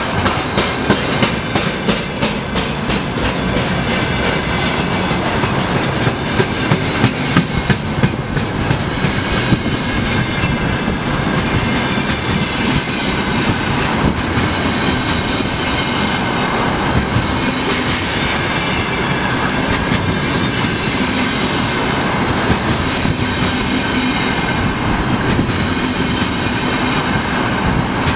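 Freight train of loaded container flat wagons rolling past at speed: a steady rumble of steel wheels on the rails, with sharp clicks and clacks as the wheels cross the rail joints, most marked in the first several seconds.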